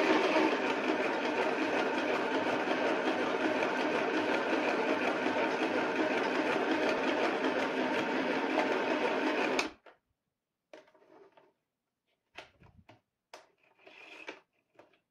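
Compact electric sewing machine (FHSM-505B-NSET) stitching, running steadily and then stopping suddenly just under ten seconds in. A few brief handling noises follow as the fabric is pulled out from under the presser foot.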